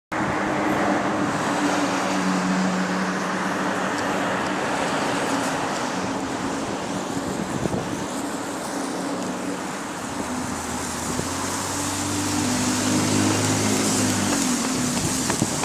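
A London double-decker bus's engine and road noise heard from on board while it drives. Its engine hum changes pitch a few times and drops to a lower note from about ten seconds in, then falls away near the end.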